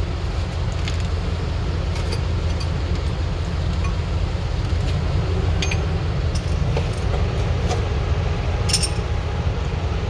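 Light metallic clinks and clicks from the steel brake pad spring clips and hardware being handled in a bus's disc brake caliper, a few at a time, with a louder cluster near the end. Under them runs a steady low rumble.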